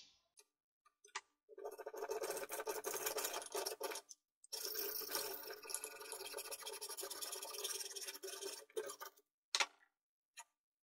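Hand hacksaw cutting through a circuit board clamped in a bench vise: a rasping run of quick saw strokes for about two and a half seconds, a short pause, then about four seconds more, followed by a few light clicks near the end.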